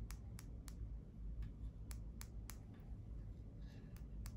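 Small glitter vial tapped and shaken to drop star-shaped glitter onto clear slime: a series of sharp, irregular clicks, a few a second, over a low steady hum.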